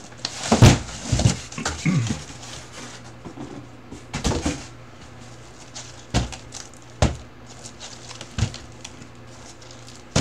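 Cardboard trading-card hobby boxes being handled and set down: scattered knocks and short rustles, the loudest about half a second in, over a faint steady low hum.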